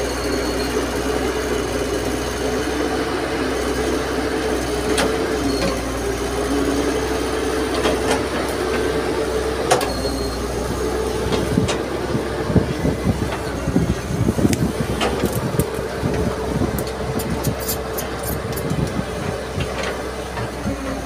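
Tracked hydraulic excavator's diesel engine running steadily while its bucket digs in rocky dirt, with scattered sharp clicks and knocks. From about eleven seconds in comes a run of irregular knocks and rattles as the bucket scrapes through soil and stones.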